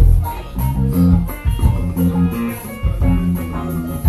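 A live band playing, with electric guitar and bass guitar to the fore.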